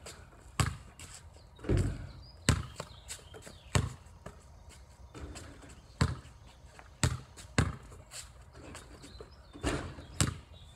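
A basketball bouncing on a wet concrete driveway: about eight sharp, irregularly spaced bangs.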